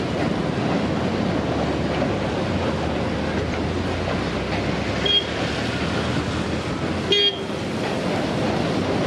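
Two short horn toots about two seconds apart, over a steady rushing noise.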